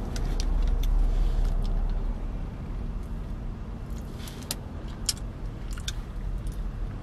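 Low car rumble heard from inside a car, loudest in the first two seconds and then steadier, with scattered small clicks and rustles of things being handled in the cabin.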